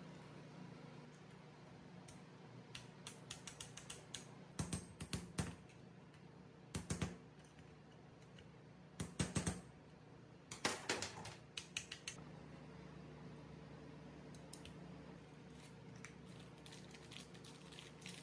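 Small clicks and rattles of parts or tools being handled, in four short clusters, over a steady low hum.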